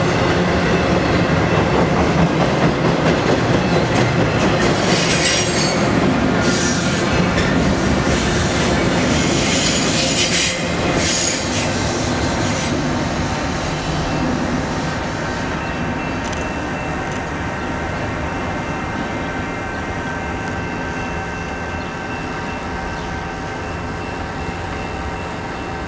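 Intermodal freight train cars rolling past close by, with wheels rumbling and clacking on the rails. There is a high wheel squeal from about five to eleven seconds in. After the last car passes, the train's noise drops and fades as it moves away.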